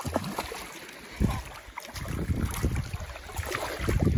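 A hooked coaster brook trout splashing and thrashing at the surface of shallow water as it is scooped into a landing net. Irregular low wind rumble on the microphone runs underneath.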